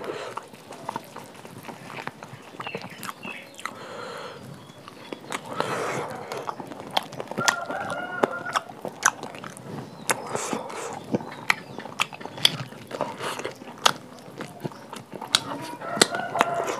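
Close-miked eating sounds: chewing with many short wet clicks and smacks. A rooster crows in the background, once around the middle and again starting near the end.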